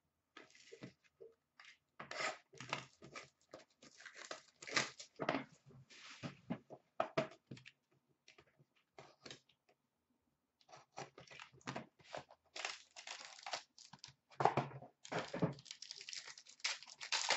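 Hockey card box packaging and a foil pack wrapper being torn open by hand: irregular rips and crinkles, with a lull of about two seconds near the middle.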